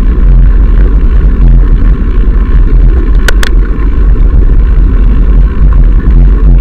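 Loud, steady wind rumble buffeting an action camera's microphone as it moves along the path. Two brief clicks a little past the middle.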